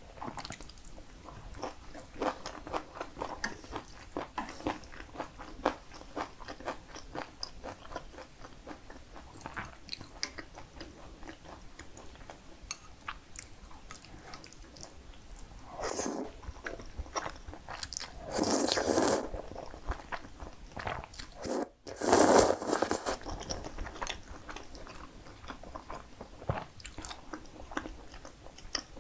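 Close-miked eating sounds of a person chewing broccoli, with a rapid run of small crisp crunches. About halfway through come a few louder bursts of a second or less as cream pasta with bacon is eaten, the loudest a little after two-thirds of the way in.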